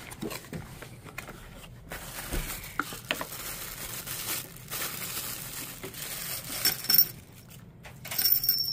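A small cardboard box being opened and a plastic bag crinkling as a wind chime is unwrapped, then the chime's glass beads and metal tubes clinking against each other on a table. Near the end, a chime tube rings with a high, steady tone.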